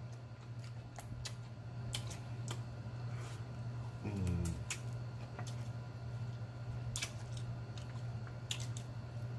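Eating sounds from hot chicken wings: scattered wet mouth clicks and lip smacks as the wings are bitten and chewed, with a short closed-mouth "mm" about four seconds in. A steady low hum runs underneath.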